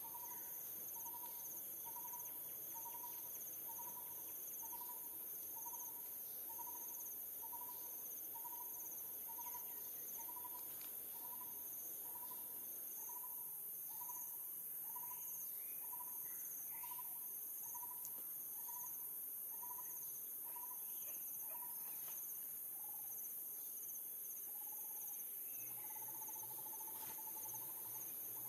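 Forest ambience: insects droning steadily at a high pitch with a second insect pulsing, and a short hooting call repeated over and over, about three every two seconds, running together into longer notes near the end.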